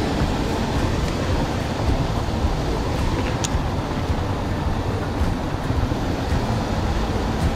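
Steady rushing noise of wind buffeting the microphone over water pouring through the canal lock gates, with a brief thin high chirp about three and a half seconds in.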